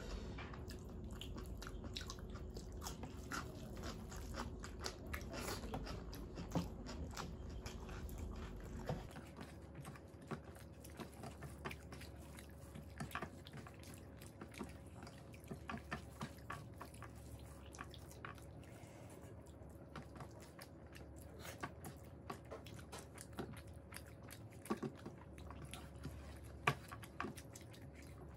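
Faint close-up eating sounds: wet chewing and mouth clicks as two people eat rice and curry with their hands, with soft squishes of fingers mixing rice on steel plates.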